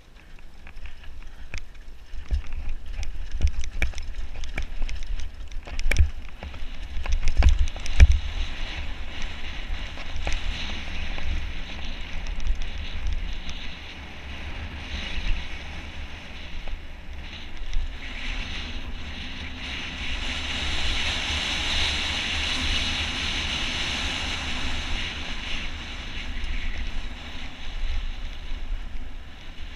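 Downhill mountain bike rattling over a rocky trail, with sharp knocks and clatter through the first ten seconds or so, then a steadier rush of tyres on loose dirt. Wind buffets the camera microphone throughout as a low rumble.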